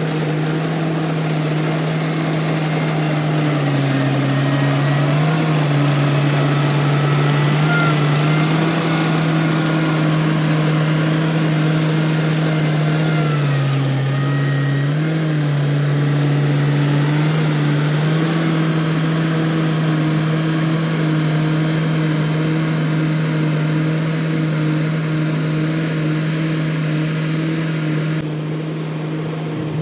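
Engine of a rice-harvesting machine running steadily, its pitch dipping briefly a few times, about four seconds in and again around thirteen to seventeen seconds in.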